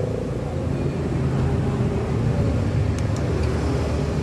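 Steady low rumble of motor-vehicle traffic, with a couple of faint clicks about three seconds in.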